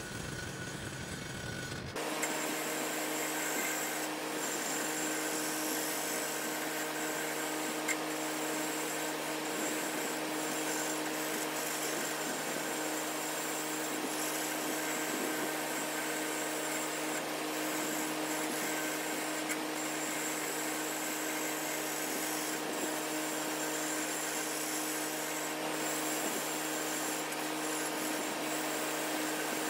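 Wood lathe running steadily while a turning gouge cuts a spinning oak blank: a constant motor hum under the rough, continuous rasp of the tool peeling off shavings. The sound gets a little louder and steadier about two seconds in.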